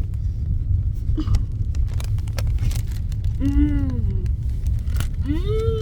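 A girl chewing a bite of Girl Scout S'mores cookie, with a few faint crunchy clicks, then humming "mmm" in enjoyment twice in the second half. A steady low rumble runs underneath throughout.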